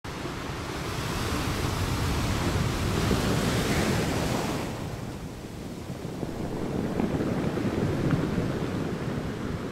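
Rushing noise of surf and wind, swelling and easing; the high hiss drops away about halfway through, leaving a lower rolling rumble.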